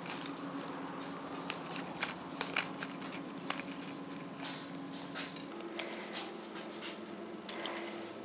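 Small plastic bag crinkling in gloved hands as tiny 1/8-inch bearings are picked out of it, with scattered sharp little clicks over a steady low hum.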